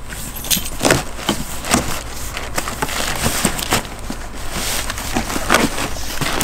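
Brown kraft packing paper crinkling and a cardboard shipping box being handled as it is unpacked by hand: a run of irregular crackles and rustles.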